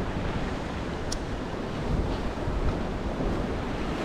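Ocean swell surging and breaking against a rock ledge, with wind buffeting the microphone.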